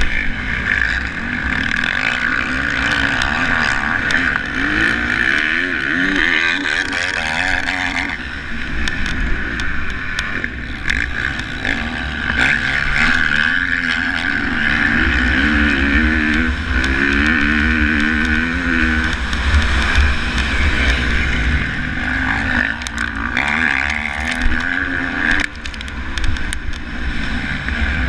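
Motocross bike engine running hard, its pitch rising and falling as the rider works the throttle and shifts through the gears, with wind rumble on the microphone. A few sharp knocks near the end.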